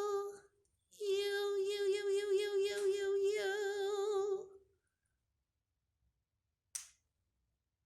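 A woman sings "look at you" in long, drawn-out notes with a wavering pitch, cooing to a pet bird. The singing stops a little under five seconds in, and a single short, sharp sound follows near the end.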